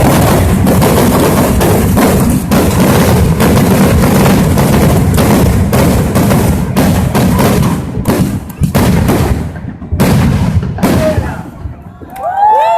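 Rapid barrage of fireworks going off, explosions piling on one another in a continuous rumble. It thins out to a handful of separate bangs after about eight seconds.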